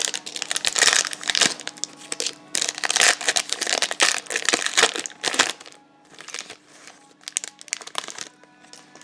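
Trading-card pack wrapper crinkling and tearing as a pack is opened, dense for about five and a half seconds, then lighter rustles and clicks of card handling.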